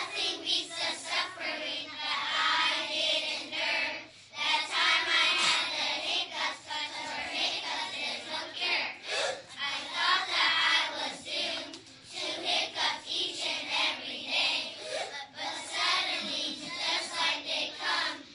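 A group of children reciting a poem together in a sing-song chant, with short pauses about four and twelve seconds in.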